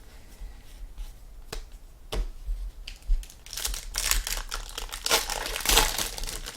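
Foil trading-card pack wrapper being crinkled and torn open by hand, a few light clicks first, then about three seconds of dense crinkling starting past the halfway point.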